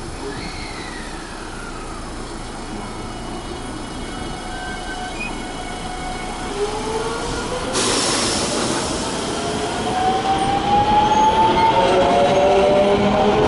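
Electric train pulling away, its traction motors whining in several parallel tones that climb steadily in pitch over the second half. A sudden burst of hiss comes about eight seconds in, and the sound grows louder toward the end.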